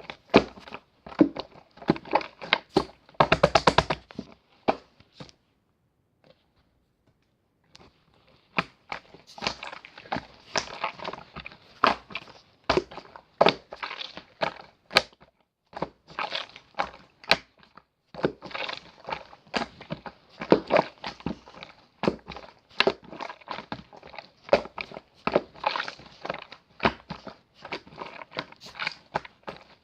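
Slime being squished and stretched by hand, giving dense runs of crackling clicks and pops, with a pause of about two seconds partway through.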